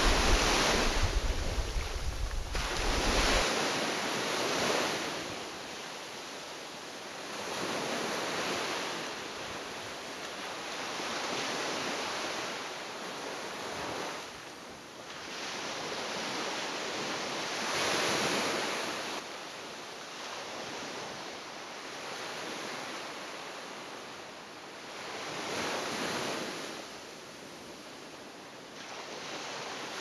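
Sea waves washing against the shore, swelling and fading every few seconds. Wind buffets the microphone with a low rumble for the first few seconds.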